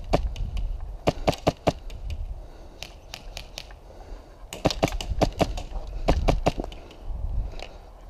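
Sharp cracks of airsoft gunfire and BBs striking, in scattered single cracks and quick runs of three or four.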